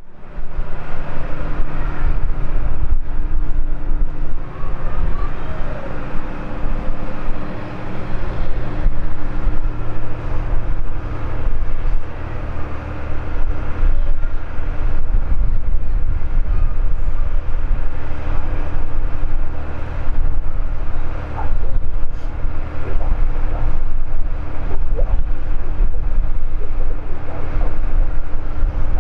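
An Embraer 195 airliner's GE CF34 turbofan engines on final approach and through touchdown: a loud, steady drone with a low rumble and a constant hum.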